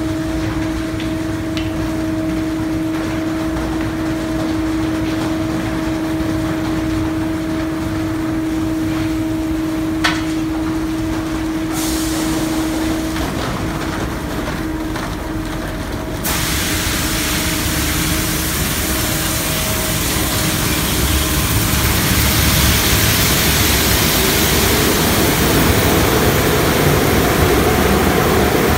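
Tunnel car wash working on a car: running water and equipment noise with a steady machine hum. About halfway through it breaks into a sudden loud hiss of spray that builds into a heavier rush toward the end.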